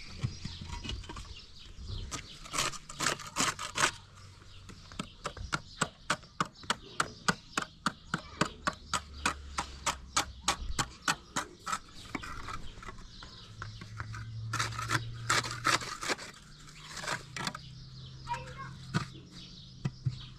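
A steady run of sharp knocks, about three a second, for several seconds, with rougher scraping-like noise before and after.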